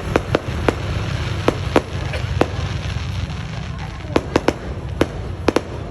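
Fireworks going off: about a dozen sharp bangs at irregular intervals, in a quick run at the start, a lull in the middle, and another cluster near the end.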